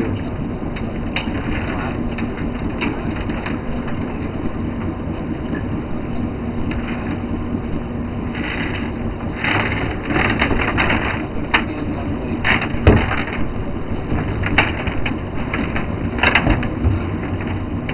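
Steady drone of a fishing boat's engine and hauling machinery as a trawl net is hoisted out of the water. From about halfway on come scattered sharp knocks and clanks, the loudest a little past the middle.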